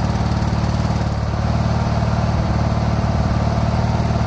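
Craftsman II garden tractor's engine running steadily at a constant speed.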